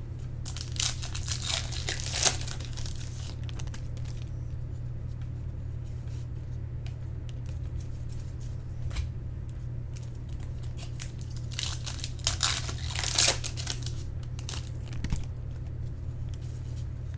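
Trading-card pack wrappers being torn open and crinkled, in two bouts about a second in and around twelve seconds in, with light handling clicks between them, over a steady low hum.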